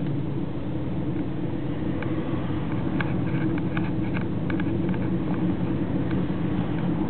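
Steady low engine and road rumble heard inside a moving car's cabin in city traffic, with a scatter of faint light ticks about halfway through.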